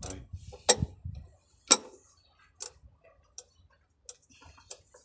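A series of sharp, separate clicks and taps, about one a second, from small metal parts or tools being handled during work on a truck's fuel filter.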